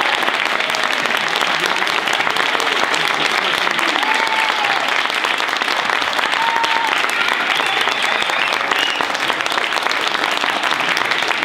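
Audience applauding steadily, many hands clapping at once, with a few short voices calling out over the clapping.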